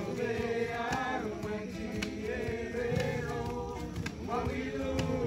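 A group of voices singing together, men's voices prominent, in long held notes that slide up and down in pitch.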